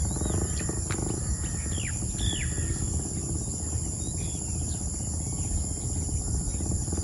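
Outdoor ambience: a steady high-pitched drone of insects, with a few short falling bird chirps in the first half and a low rumble underneath.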